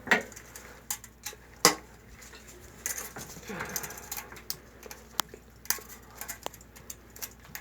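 Irregular sharp metal clicks and knocks as clamps and tools are handled while fitting a rubber patch and clamps around a leaking sewer pipe. The loudest knocks come right at the start and about a second and a half in.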